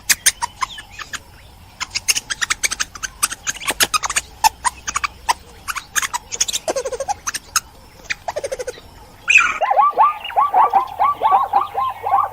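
Animal calls: a scattered series of sharp, clicking chirps. About nine seconds in, they give way to a fast run of short, falling chirps.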